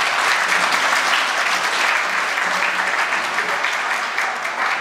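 Audience applauding: dense, steady clapping from a large crowd that eases slightly near the end.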